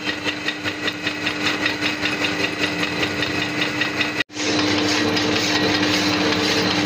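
Metal lathe running with a steel shaft turning in it: a steady hum with an even ticking about five times a second. The sound cuts out for an instant about four seconds in and comes back as a steadier hum.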